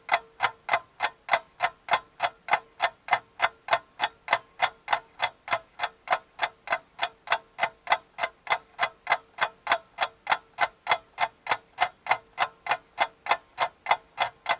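Clock-like ticking sound effect: sharp, even ticks at about three a second over a faint steady tone, starting and stopping abruptly.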